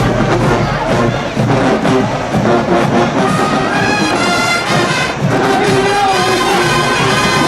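Marching band playing: drums driving the first half, with the brass section coming in on long held notes about halfway through.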